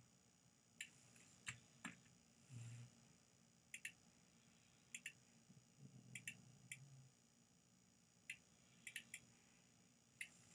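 Computer mouse clicking now and then in a quiet room, several of the clicks in quick pairs.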